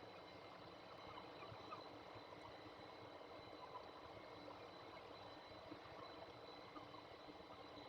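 Near silence: a steady faint hiss with a thin, constant high-pitched electrical whine.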